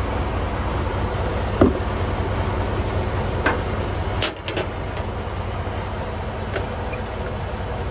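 Semi-truck diesel engine running with a steady low rumble, with a couple of light clicks and a brief dip in level about four seconds in.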